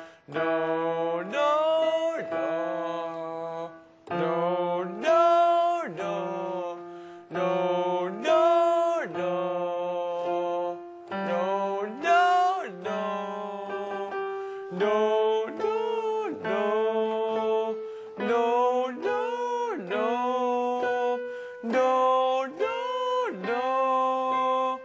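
Male vocal warm-up: a man sings short scale runs that rise and fall, one after another, over held chords on a Korg SP-170 digital piano. The accompanying chord moves up in pitch every few phrases, taking the exercise gradually higher.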